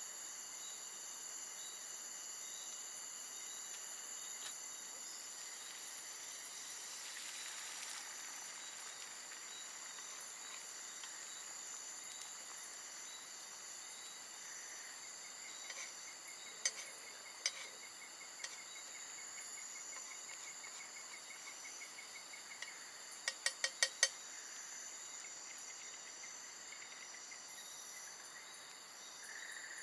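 Night insect chorus of crickets, a steady layered high trilling. Sharp clicks cut through it: a few single ones in the middle and a quick run of about five a little later.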